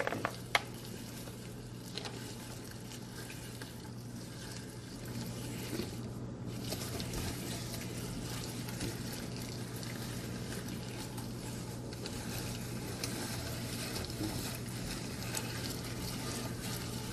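Red hand-cranked mincer grinding walnuts, a steady crunching crackle as the crank turns.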